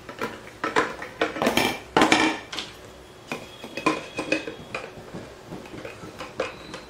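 Vacuum cleaner attachments being handled and fitted together by hand: a run of clicks and knocks, with a louder clatter about one and a half to two seconds in and a short ringing rattle a little later.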